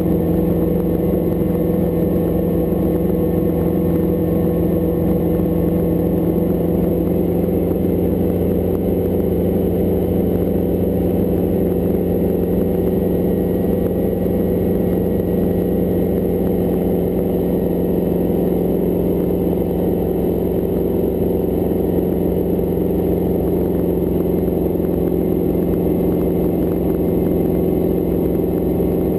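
Hughes 269 piston helicopter running steadily, its four-cylinder Lycoming engine and rotors making an even, continuous drone.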